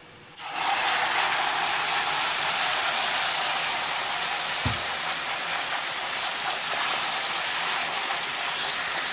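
Ground tomato purée hitting hot oil with browned garlic and cumin, sizzling loudly. The sizzle starts suddenly about half a second in and holds steady.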